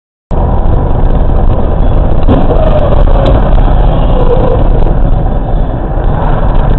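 Loud, steady road and engine rumble of a vehicle on the move, as picked up by a dash-cam microphone. It starts abruptly about a third of a second in, with a couple of faint knocks a little over two and three seconds in.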